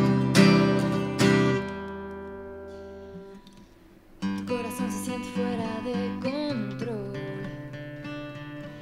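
Acoustic guitar strummed with a woman singing. The opening chords ring out and fade, there is a brief pause, and the strumming starts again about four seconds in, with her singing over it.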